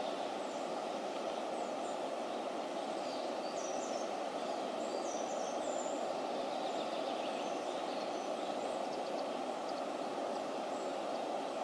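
Elbe floodwater pouring through a dam breach over a broken bank: a steady rush of water, with a few faint bird chirps in the middle.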